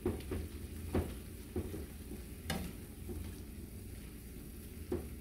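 Black spoon stirring and scraping through beef and tomatoes in a nonstick frying pan, a few irregular strokes over a soft sizzle from the simmering pan.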